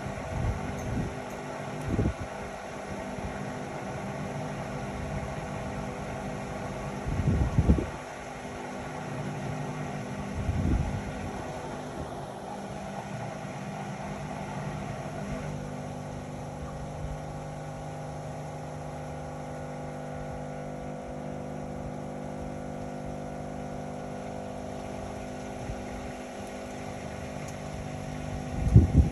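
Indesit Innex XWA 81252 front-loading washing machine running: a steady motor and drum hum with a few low thumps, the loudest about seven to eight seconds in and just before the end. About halfway through, the hum settles into a steadier low tone.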